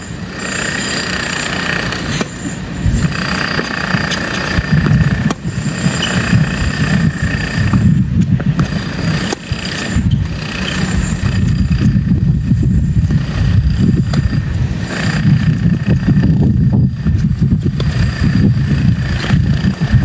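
Strong wind buffeting the microphone in a loud, steady low rumble, mixed with constant mechanical-sounding background noise that carries a few thin high tones. Tennis balls are struck by rackets every few seconds.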